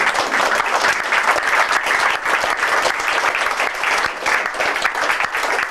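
A room full of people applauding, dense clapping held at a steady level.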